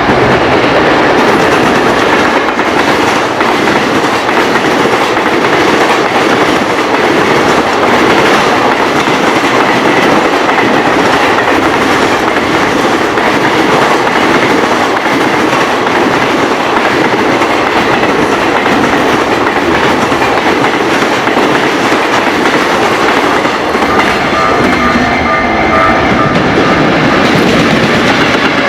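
A long freight train passing close by, its wheels clattering over the rail joints without a break.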